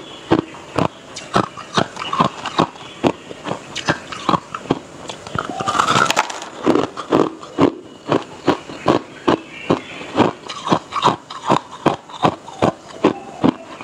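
Hard ice being bitten and crunched between the teeth, picked up close on a clip-on microphone: rapid sharp crunches at about two to three a second. About six seconds in, a longer and louder crunching stretch comes as a fresh piece of ice goes into the mouth.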